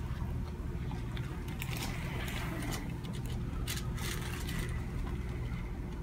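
Hands rubbing and kneading the skin and muscles of a neck during myofascial release, with faint, brief rustling scrapes over a steady low room hum.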